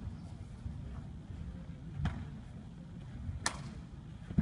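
Sharp snaps and thuds from taekwondo poomsae strikes and kicks: a few single hits spaced about a second or more apart, the loudest right at the end.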